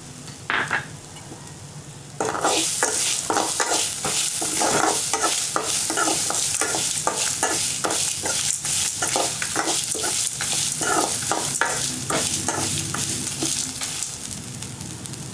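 Stirring and scraping dal, dried red chillies and grated coconut around a steel kadai as they roast in a little sizzling oil. The stirring picks up about two seconds in, with about two scraping strokes a second over a steady sizzle.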